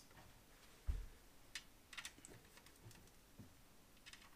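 Faint, scattered light clicks and a soft thump about a second in: small screws and the cabinet-front door panel being handled as the screws are pushed through the drilled holes from the back.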